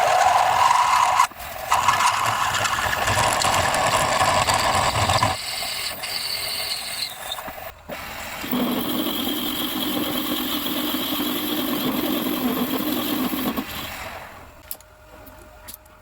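Electric power tools running in workshop metalwork, in three stretches each with its own steady whine, then stopping near the end.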